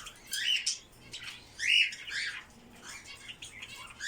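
Budgerigars chirping and squawking in a string of short calls, the loudest about two seconds in.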